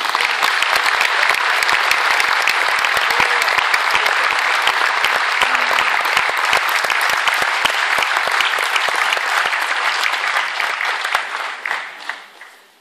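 Audience applauding: loud, dense clapping that starts at once and dies away near the end.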